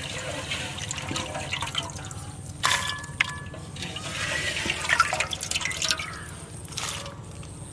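Water splashing and dripping as hands scoop wet radish slices out of a pot of washing water and drop them into a steel colander, with a couple of sharp knocks about three seconds in.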